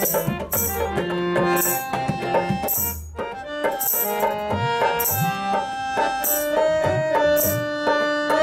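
Instrumental interlude of a devotional song: a sustained melody over percussion, with regular jingling strikes and low drum strokes, some of which slide upward in pitch in the second half.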